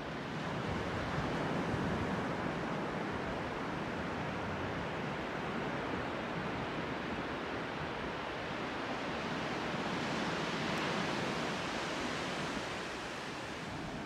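Pacific Ocean surf breaking and washing up a sand beach: a steady rushing noise that swells about a second in and again around ten seconds in, then eases near the end.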